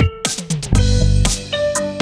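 Music with a beat: pitched, plucked-sounding notes over heavy bass and drum hits.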